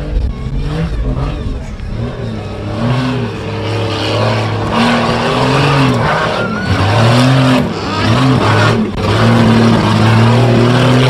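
Off-road 4x4's engine revving in repeated rises and falls, the throttle blipped again and again, and growing louder.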